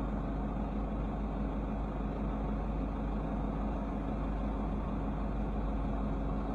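Vehicle engine idling with a steady low hum.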